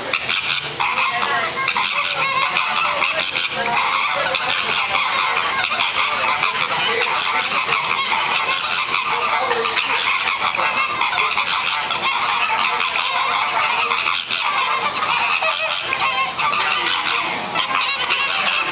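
A flock of American flamingos honking, many calls overlapping in a dense, unbroken chatter.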